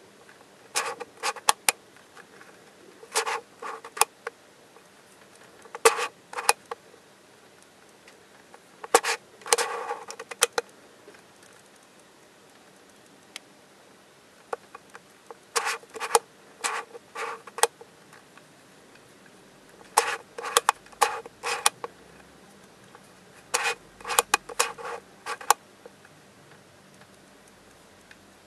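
Football Twist Ball puzzle being twisted by hand, its plastic segments clicking into place as each move is completed. The clicks come in short clusters every few seconds, with quiet gaps between.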